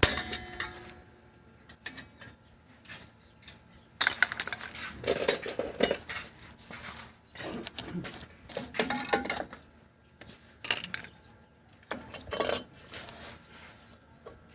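Metal tools and parts clinking and clattering in irregular bursts, with quiet gaps between; the busiest stretch comes about four to six seconds in.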